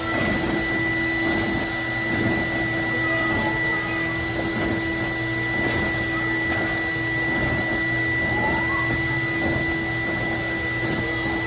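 Plush-toy stuffing machine's blower motor running with a steady, even whine, blowing fluff into a stuffed animal while a child holds down the foot pedal.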